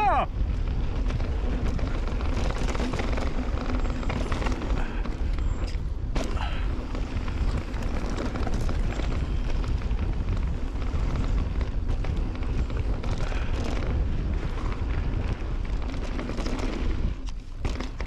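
Wind buffeting the microphone of a bike-mounted or helmet camera while a mountain bike descends a dirt trail, with the tyres running over dirt and short knocks as the bike rattles over bumps. The rush eases a little near the end.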